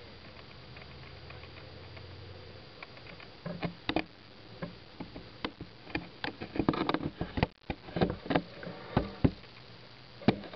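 Steady hiss, then a run of irregular sharp clicks and knocks starting about three and a half seconds in, some with a dull low thud.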